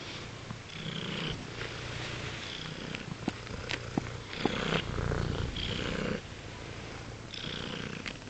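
Chinchilla cat purring in repeated swells about a second long, one longer swell in the middle, with a few sharp clicks between them.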